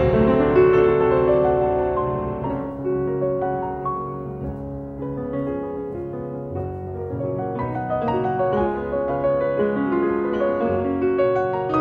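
Piano music: a continuous run of piano notes, softer in the middle and growing louder again toward the end.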